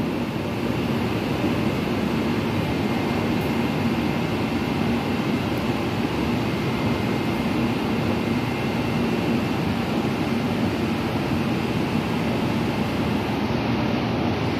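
Underground metro train running alongside the platform, a steady rumble with a faint hum.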